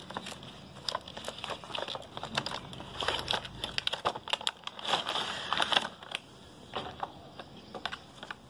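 Packaging being handled and opened during an unboxing: crinkling and rustling with scattered clicks and handling knocks, busiest in the middle.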